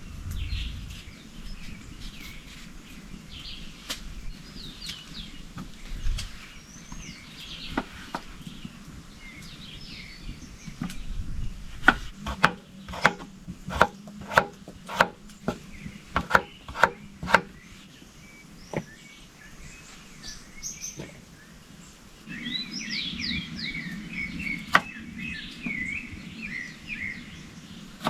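Small birds chirping throughout, with a run of about a dozen sharp chopping knocks, roughly two a second, in the middle, and a busier burst of bird chatter near the end.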